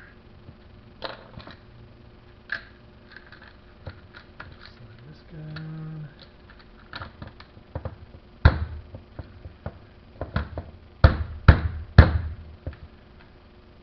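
Clicks and taps of parts and tools being handled while an angle grinder is reassembled, with a loud knock about two thirds of the way in and three more close together near the end.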